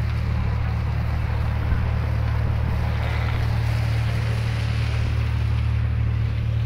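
A ship's engine running with a steady low hum, with a haze of wind and sea noise over it.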